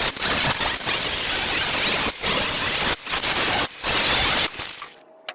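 Wire-feed (MIG) welder laying welds on a steel patch panel: loud crackling hiss in several runs, with brief breaks where the trigger is released, ending abruptly about five seconds in.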